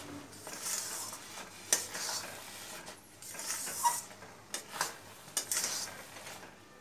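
Metal spatula stirring and scraping thick, sticky mango pickle around a stainless steel pan, in irregular strokes with a few sharp clinks against the pan.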